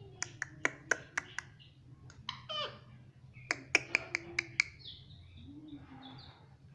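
Pet parrot giving two quick runs of short, sharp chirps, about five or six in each, with a brief bending call between them. A low steady hum runs underneath.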